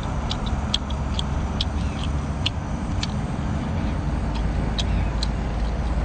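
Wet mouth clicks and smacks of someone chewing rubbery boiled squid, irregular, about three a second, over a steady low rumble.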